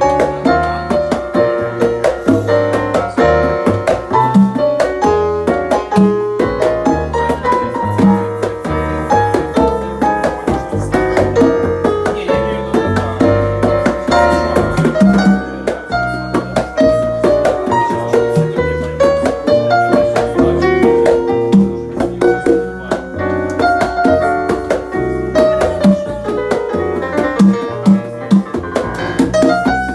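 Live jazz from a small band: a Yamaha stage keyboard with a piano sound carries the melody and chords, with upright double bass notes moving underneath and guitar alongside.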